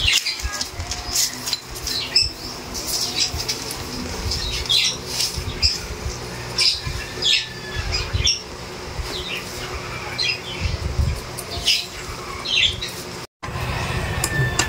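Chainsaw chain and guide bar being handled and fitted: a scatter of light metal clinks and short high squeaky chirps over a low rumble.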